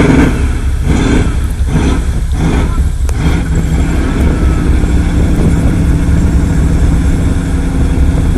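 Pickup truck engine driving through mud, revving in about five quick surges over the first three seconds, then running steadily.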